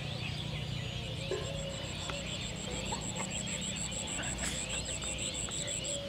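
Outdoor birdsong: many small birds chirping, with a high insect call pulsing several times a second and a steady low rumble underneath.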